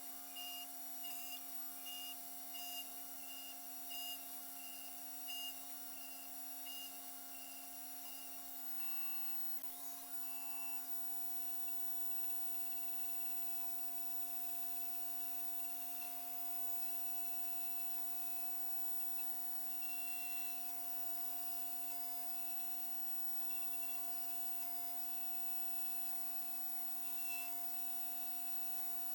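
Custom-built five-axis CNC machine running while it machines a two-stroke engine cylinder sleeve: a steady motor whine over a constant hiss, with a higher tone pulsing on and off about twice a second through the first third before it settles steady.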